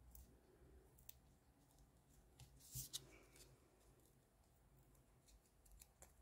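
Faint handling of small cardstock pieces and foam adhesive dots: a few scattered light clicks and rustles, the loudest nearly three seconds in.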